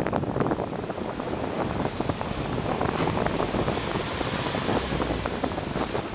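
Wind rushing over the microphone over the rolling rumble of a ZBoard electric skateboard's wheels on a concrete sidewalk, with many small clicks and rattles.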